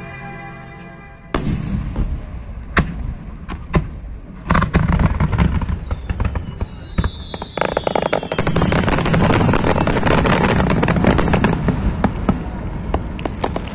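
Background music for about the first second, cut off abruptly by the live sound of aerial firework shells bursting in sharp, separate bangs. Partway through comes a whistle falling slowly in pitch, then a dense, continuous crackle of many bursts.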